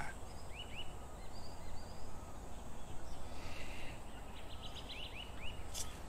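Outdoor park ambience: small birds chirping in short calls now and then over a low, steady background rumble.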